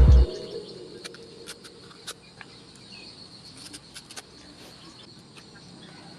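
Background music cutting off just after the start, then faint outdoor ambience: a steady high insect trill with scattered small clicks.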